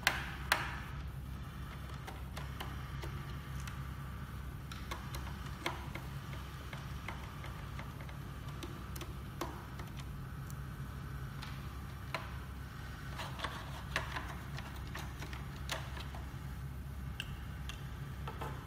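Scattered small clicks and taps of a screwdriver and loose parts being handled inside an opened projector during disassembly, irregular, with a sharper pair of clicks at the start, over a steady low hum.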